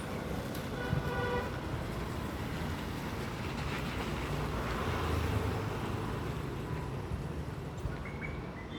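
Steady low rumble of background road traffic, swelling briefly around the middle, with a short pitched tone about a second in.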